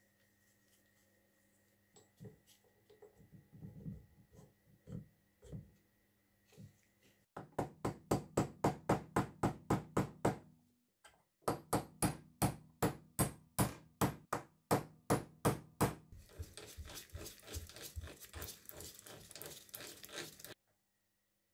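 Small cross-peen hammer striking steel, driving a pin into a breast drill's gear assembly. It comes in quick, even runs of sharp blows, about five a second, with a short pause between runs. A faster spell of lighter taps follows near the end and stops suddenly.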